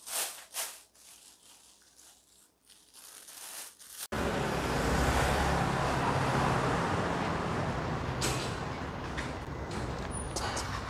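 A plastic bag crinkling briefly, then, after an abrupt cut about four seconds in, steady street traffic noise with a low engine rumble.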